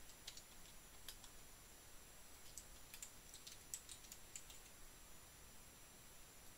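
Faint keystrokes on a computer keyboard: scattered taps, most of them in a quick run from about two and a half to four and a half seconds in.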